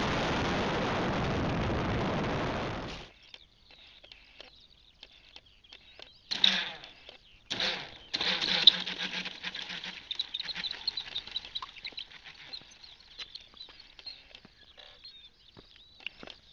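A steady, even hiss on the RC aircraft's onboard camera audio, cutting off sharply about three seconds in. Then quieter outdoor sound follows, with scattered clicks, two brief loud rushes of noise, and faint repeated high chirps.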